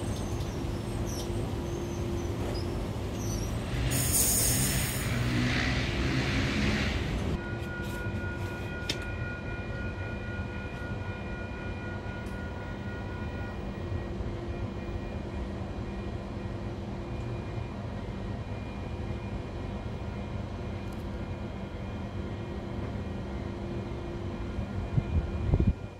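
NSW TrainLink Oscar electric train standing at the platform, its onboard equipment humming steadily with several held tones. About four seconds in, a loud hiss lasts about three seconds and cuts off, followed by a few clicks; a brief low thump comes near the end.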